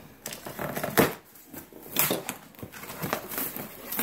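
Cardboard box being torn and pulled open by hand: scattered crackling and rustling of the card, with louder crackles about one and two seconds in.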